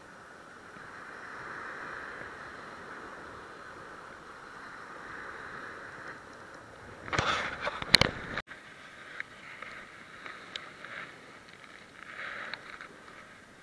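Steady rushing of wind and sea on the microphone. About seven seconds in there is a second of loud knocking and rubbing, then an abrupt cut, followed by fainter scattered clicks and rustling.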